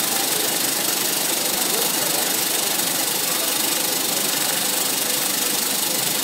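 Titan Gyro rotary vibrating screen, a Sweco-type circular sieve, running: a steady, even mechanical noise with a bright hiss and no distinct rhythm.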